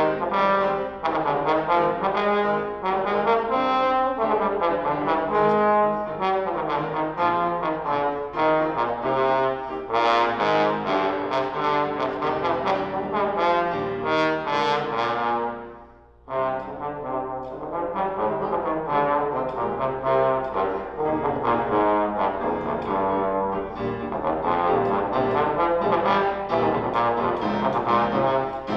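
Trombone playing a melodic solo line with piano accompaniment, breaking off briefly a little past halfway before both resume.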